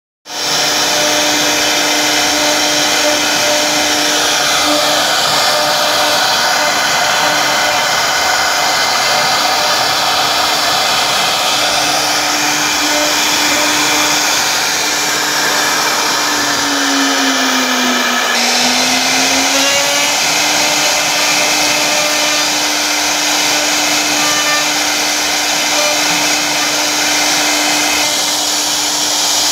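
CNC wood router's spindle running as it carves a wooden panel: a steady high whine over a dense rushing noise. About two thirds of the way through, its main tone dips in pitch and then climbs back.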